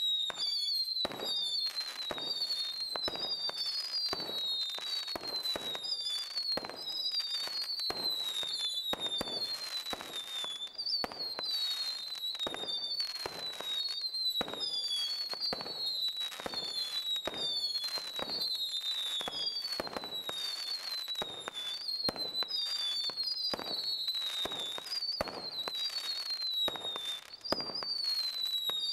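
Bright Star 'Bunker Buster' firework firing continuously: overlapping whistles, each falling slightly in pitch, about one a second, over a steady run of pops and crackles, with a brief lull near the end.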